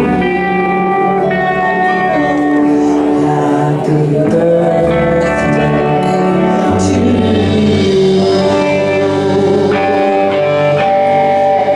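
Background music: held chords that change every couple of seconds, with a steady low bass line.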